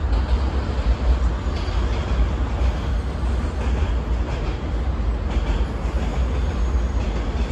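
CSX intermodal freight train rolling across a steel truss bridge: a steady rumble of the passing trailer and container cars, with a few faint, irregular clanks.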